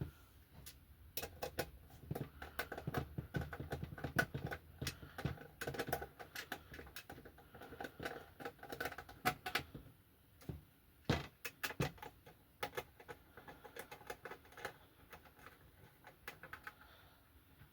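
Screwdriver tightening the top-cover screws of an Xbox 360 E disc drive: quick, irregular small clicks and scraping of metal parts, with a few sharper single clicks in the second half.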